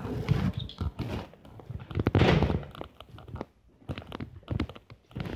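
Footsteps and handling noise from a camera carried while walking: irregular knocks and clicks, with a louder noisy burst lasting about half a second around two seconds in.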